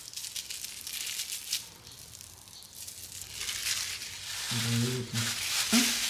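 Thin plastic wrapping crinkling and tearing as a sachet of ogi (fermented maize paste) is peeled open and squeezed out by hand, in crackly spells at the start and again, denser, in the second half.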